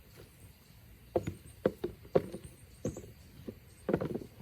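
Potatoes being dropped into a container as they are picked up: about ten short, irregular knocks, starting about a second in, with a quick cluster near the end.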